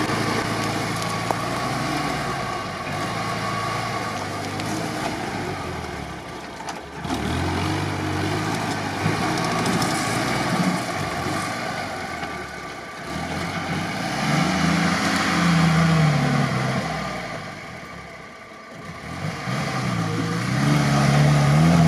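Willys jeep engine running under load as the jeep drives up a sandy slope, the revs rising and falling several times and loudest near the end.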